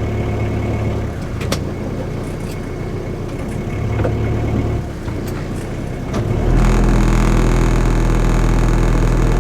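Sailboat's inboard engine running at low revs, throttled up hard about six and a half seconds in while the boat is manoeuvred off the dock, with a few light knocks.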